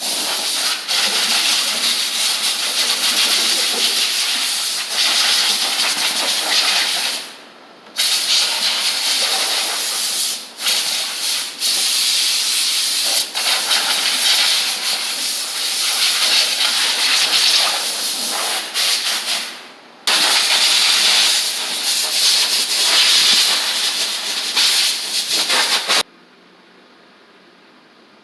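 Compressed-air blow gun blowing dust and leaves out of a car's engine bay: a loud, steady hiss in long blasts, with brief breaks about seven and a half and twenty seconds in, stopping near the end.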